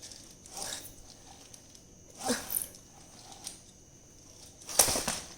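Lego Technic pullback toy car being handled, with a few faint scraping rustles and one sharp knock near the end.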